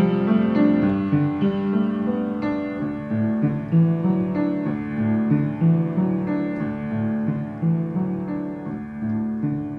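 Upright piano being played: a melody of single notes, struck about once or twice a second, over held chords in the bass.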